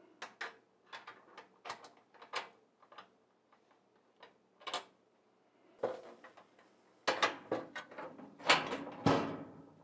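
Light clicks and knocks of a fire cabinet's door being handled and fitted onto the cabinet body, scattered at first, then a busier, louder run of knocks in the last few seconds.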